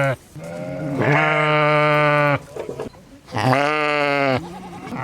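Sheep bleating: a series of drawn-out baas with short pauses between, the longest lasting about two seconds and the next about one second.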